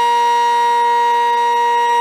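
Sentry 15V2T outdoor warning siren sounding loud and steady, holding one pitch without rising or falling: the steady Alert signal.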